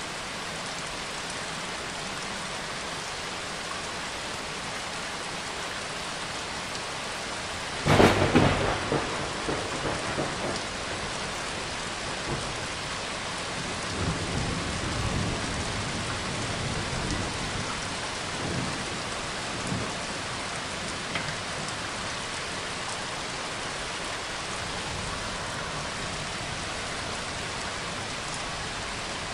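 Steady rain on a surface with a sudden thunderclap about eight seconds in that rumbles on for a few seconds, followed by several fainter rolls of thunder.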